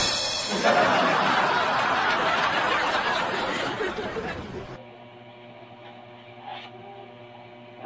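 Canned laughter sound effect for about four seconds, cutting off suddenly, followed by a faint steady hum.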